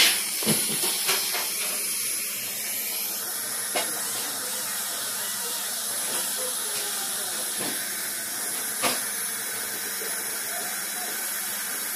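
Dental suction hissing steadily at the patient's mouth, with a thin steady high whine over it and a few light clicks of instruments.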